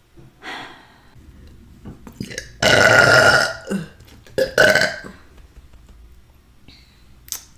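A woman burping: one long, loud burp lasting about a second, starting about two and a half seconds in, then a shorter one about a second later.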